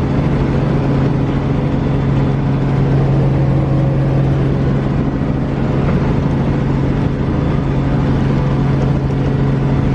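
Steady vehicle drone: a constant low engine or motor hum over an even rushing noise, unchanging in level and pitch.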